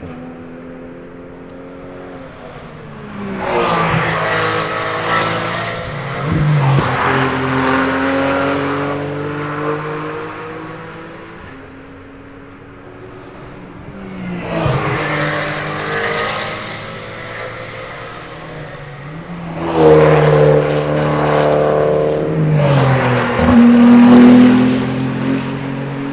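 Race cars passing one after another at speed, about five in turn. Each engine rises to a peak and then drops in pitch as it goes by. The loudest passes come near the end.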